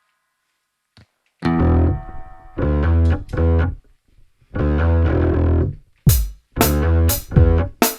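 Electric guitar played through a BOSS GT-1000 amp modeller and Two Notes Cab M cab simulator, with a slightly driven amp tone: short chord stabs starting about a second and a half in, after a faint click. From about six seconds, sharp hits in a steady rhythm join in.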